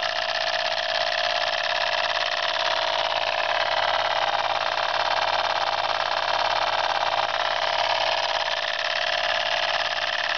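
Jensen No. 25 model steam engine running steadily on compressed air from a mini air pump, a fast even chuffing and clatter, with the pump's steady hum underneath.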